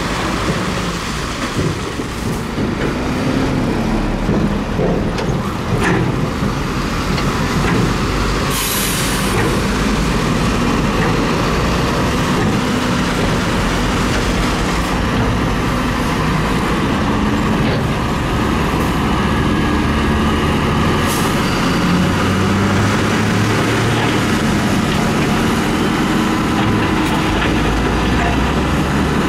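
Heavy dump truck's diesel engine running under load while the tipper body is worked, its pitch rising and falling. Two short sharp hisses of released air are heard, one about a third of the way in and one past the middle.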